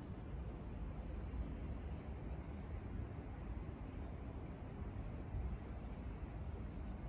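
Outdoor ambience: a steady low rumble with faint short runs of high bird chirps every couple of seconds.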